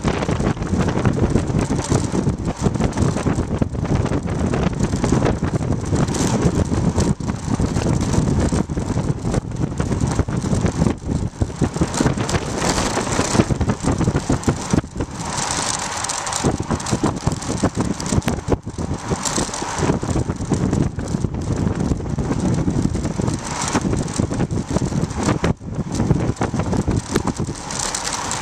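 Wind rushing over the microphone of a bike-mounted camera on a fast road-bike descent, with tyre roar and the rattle and knocks of the road through the homemade handlebar mount.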